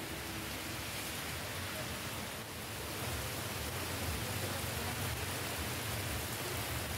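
Heavy rain pouring down steadily; about three seconds in it gives way to the louder, lower rush of floodwater surging over a flooded street.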